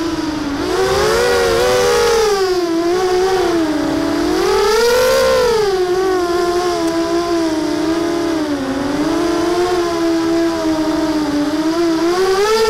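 Lumenier QAV250 FPV racing quadcopter's brushless motors and propellers whining. The pitch swings up and down with the throttle during the first half, then holds fairly steady.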